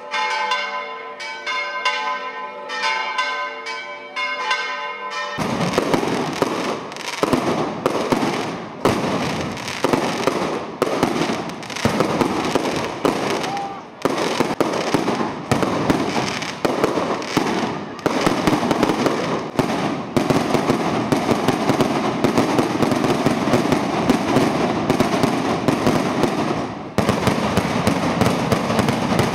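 Church bells ringing for about the first five seconds, then a dense, continuous string of firecracker bangs starts suddenly and keeps going.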